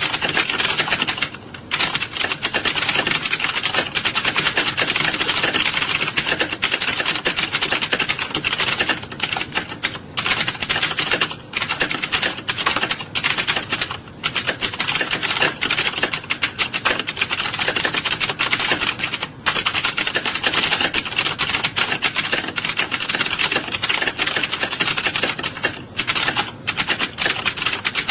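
Many keyboards being typed on at once in a typing class: a dense, continuous clatter of overlapping keystrokes, with a few brief lulls.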